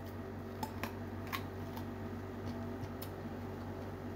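Eating sounds: quiet chewing with a few faint, short crisp clicks, over a steady low hum.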